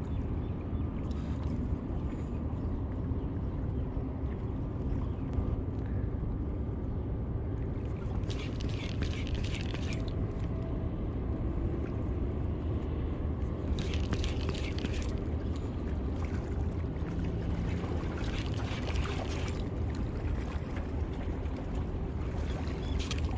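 Steady wind rumble on the microphone, broken four times by short scratchy bursts a second or two long from the spinning rod and reel being worked during a jig retrieve.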